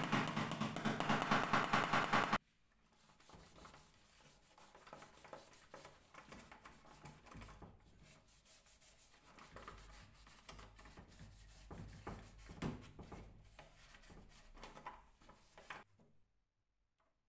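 Small hammer tapping rapidly on a steel fastener plate on a wooden suitcase, stopping abruptly about two seconds in. Then a cloth rubbing softly over a wooden handle, with faint irregular scuffs.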